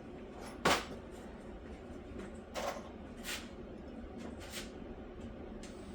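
A hammer striking wooden stud framing, one sharp blow about a second in, then a few lighter knocks.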